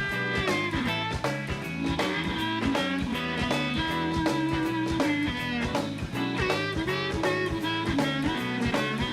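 Blues band playing, with a steady beat and a walking low line under the lead instruments.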